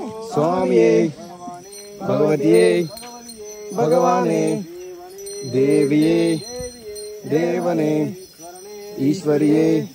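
Singing in short repeated phrases, six of them about every two seconds, over a jingling bell accompaniment.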